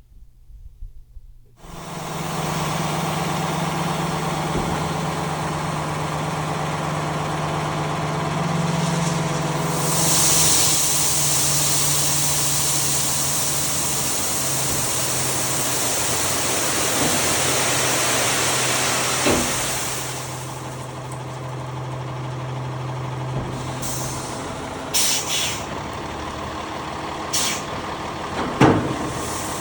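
Truck engine starting up after a second and a half of quiet and running steadily, with a low hum whose pitch shifts a few times and a loud hiss in the middle. It drops to a lower level after about twenty seconds, with a few sharp knocks near the end.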